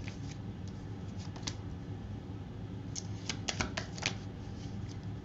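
Tarot cards being handled: one sharp snap about a second and a half in, then a quick run of crisp card snaps and clicks between about three and four seconds in as cards are drawn from the deck and laid on the table, over a low steady hum.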